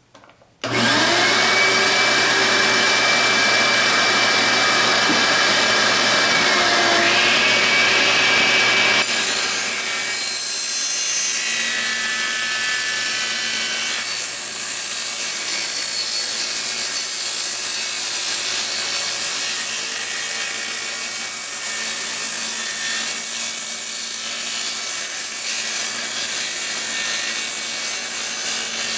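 Delta table saw switched on, its motor spinning up to speed with a rising whine. About nine seconds in, the blade starts cutting a 2x4 at an angle, and the cut runs steadily to the end.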